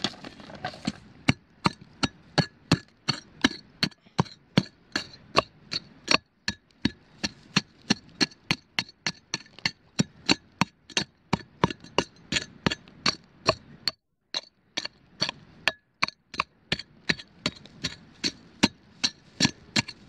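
A metal digging tool striking and chopping into stony, gravelly ground over and over, about two to three strikes a second, with a short pause a little past the middle.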